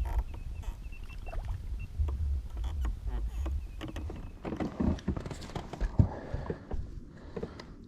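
Small knocks and clicks of handling on a fishing boat over a steady low rumble, with one sharper knock about six seconds in.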